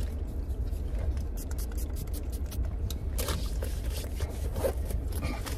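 Car cabin noise: a steady low rumble, with scraping and rustling from something being handled close to the microphone, busiest around the middle.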